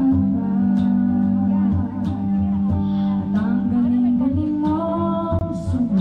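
Small live band: a singer holding long notes over a strummed guitar.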